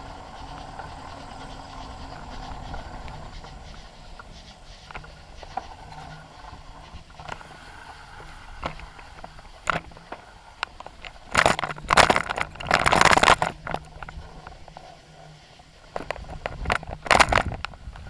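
A bicycle in motion, heard through a handlebar-mounted camera: a steady rolling noise from the bike, broken by loud rattling, scraping clatter for a couple of seconds about halfway through and again briefly near the end.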